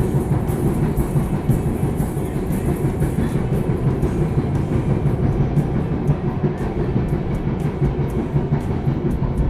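Passenger train running along the track: a steady low rumble with rail clatter.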